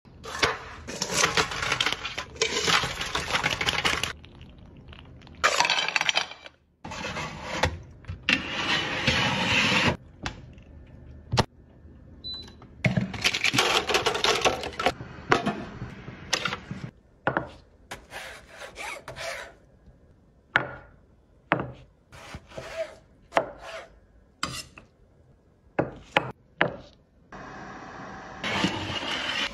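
Kitchen handling sounds in short bursts of scraping and clattering, with sharp clicks and knocks between them. About halfway through, abalone shells clatter onto a steamer rack. A steady hiss near the end.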